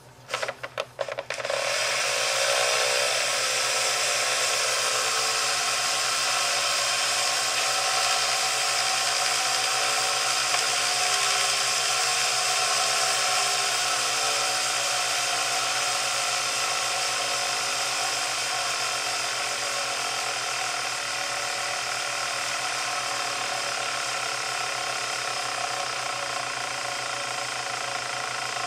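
Homemade pulse motor being started by hand, a few clicks as its magnet rotor is flicked, then the rotor spinning up and running at speed on its bearings with a steady, high mechanical whir. Its pitch wavers slightly as the speed settles.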